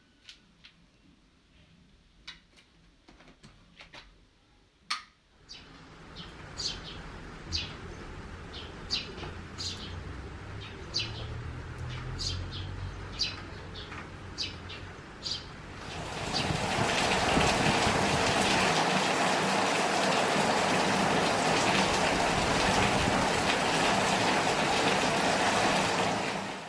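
Birds chirping in short calls about once a second over a soft outdoor background. A little past the middle, steady heavy rain sets in and becomes the loudest sound, then cuts off sharply at the end. Before the birds, a few faint clicks in a quiet room.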